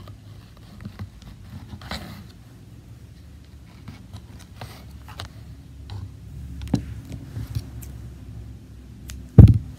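Hand-weaving on a wooden frame loom: soft yarn rustles and small scattered clicks from fingers and tools at the loom, with one heavier low knock near the end.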